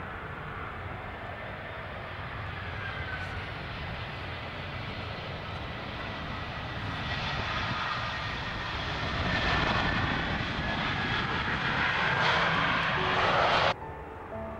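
Jet engines of a landing Airbus A320-family airliner, a steady rushing noise that grows louder over the second half as it touches down and rolls out, then cuts off suddenly near the end.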